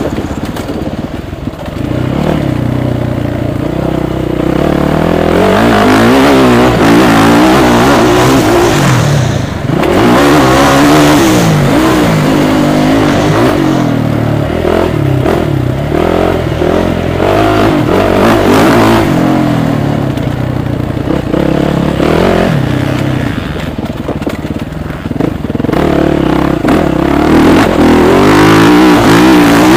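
Suzuki motocross bike engine heard from on the bike while riding a dirt track, its pitch rising and falling again and again as the throttle opens and closes through the turns and bumps. It eases off briefly about ten seconds in and again about two thirds of the way through before pulling hard again.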